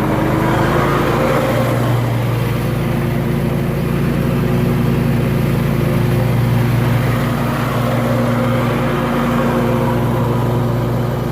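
Commercial lawn mower engine running steadily while mowing.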